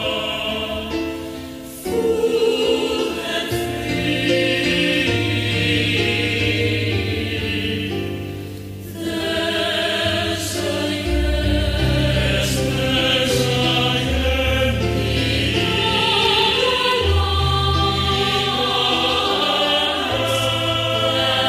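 Choral music: a choir singing slow, held chords, with brief breaks between phrases about two and nine seconds in.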